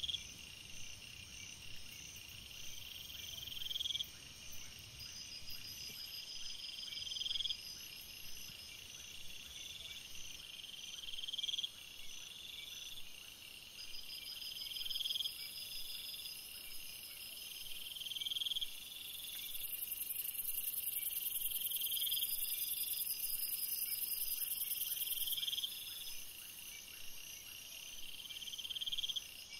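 A chorus of night insects chirring. One call swells over about a second and stops sharply, every three to four seconds, over a steady pulsing trill. Partway through, a high, even hiss from more insects grows louder for several seconds.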